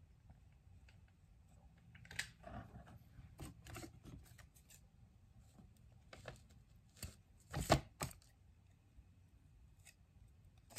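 Scissors snipping jute twine, with short clicks and rustles of craft items being handled; the loudest snips come about three quarters of the way in.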